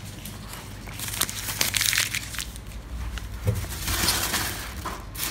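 Paper receipts being crumpled up by hand: a crackling rustle with many small clicks, loudest about a second in and again near the end.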